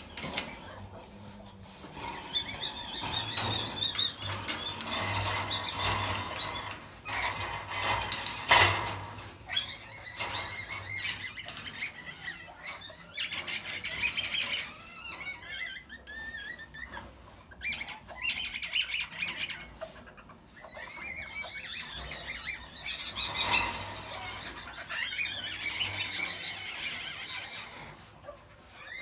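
Asian palm civets in a wire cage giving repeated high-pitched, wavering squealing calls, with a few sharp knocks, the loudest about eight seconds in.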